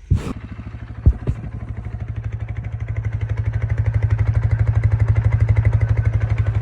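Four-wheeler (ATV) engine starting and running, now fed by a new fuel pump. It fires right at the start, with two sharp clunks about a second in, then settles into a steady, evenly pulsing run that grows louder over the first few seconds.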